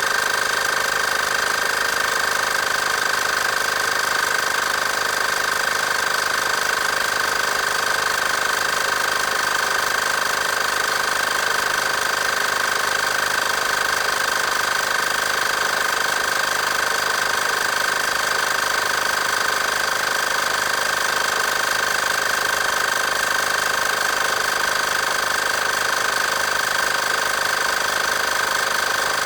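Portable 12-volt tyre-inflator air compressor running steadily, its small piston pump chattering as it pumps air into a tyre.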